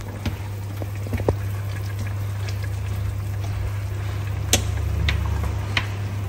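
Pots of green vegetables boiling on an induction cooktop over a steady low hum. A few sharp clicks and taps of chopsticks against the steel pots come through, the loudest about four and a half seconds in.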